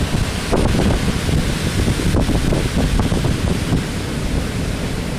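Tropical-storm wind buffeting the microphone in loud, uneven gusts, over the steady wash of heavy surf breaking on the beach.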